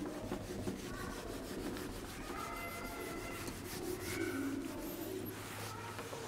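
Whiteboard eraser rubbing across a whiteboard in quick repeated wiping strokes as marker writing is cleared off.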